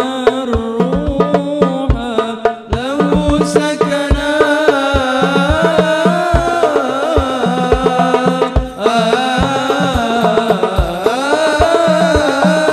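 Hadrah performance of a sholawat: male voices singing a devotional melody into microphones over hadrah frame drums, whose deep bass strokes and sharper slaps keep a steady beat.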